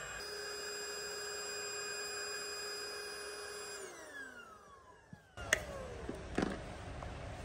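Small electric air pump inflating a kiddie pool, running with a steady whine, then switched off about four seconds in and spinning down with falling pitch. A couple of sharp clicks follow near the end.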